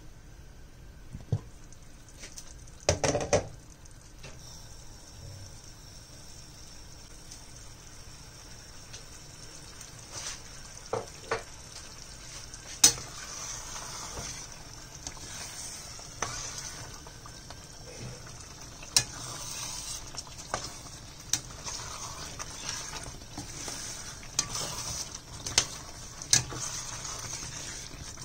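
Egg curry sizzling and simmering in a stainless-steel pan, with a clatter about three seconds in as the glass lid comes off. A metal spoon then stirs the curry, clinking sharply against the pan every second or few.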